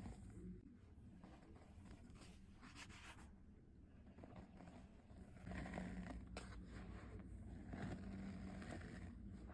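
Soft, faint scraping and crunching of dry powder being handled, with a few sharp crackles. It gets busier about halfway through.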